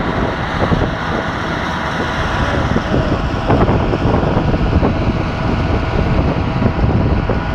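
Tornado winds buffeting a phone's microphone: a loud, gusting rush of wind noise.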